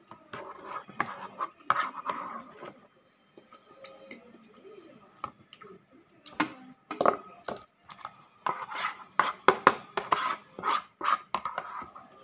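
Metal spoon and fork clicking and scraping against a plastic food container, with chewing between. The clicks come in uneven bursts, busiest in the second half, as the last of the noodle soup is scraped out of the tipped container.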